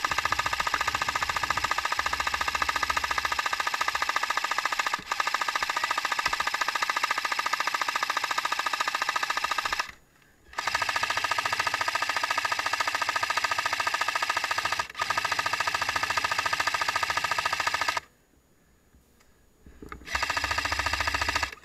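Airsoft support machine gun firing long full-auto bursts, a fast even rattle. It breaks off briefly about ten seconds in and stops for about two seconds near the end before firing again.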